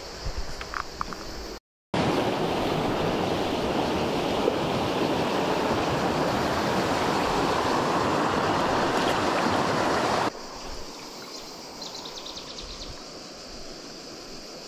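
Rushing river water, a loud even roar that starts after a brief gap about two seconds in and cuts off suddenly about ten seconds in. A much quieter steady hiss of flowing water follows, with a few faint high ticks.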